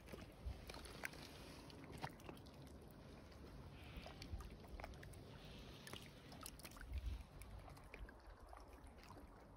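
Near silence: faint outdoor ambience with a low rumble and a few soft scattered clicks, and a slightly louder low thump about seven seconds in.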